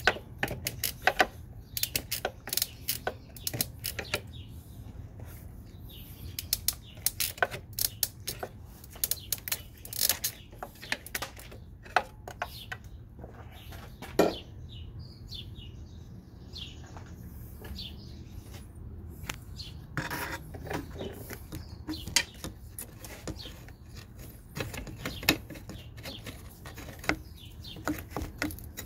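Hand tools clicking and clinking on metal as an alternator is worked loose: irregular sharp clicks, some in quick clusters.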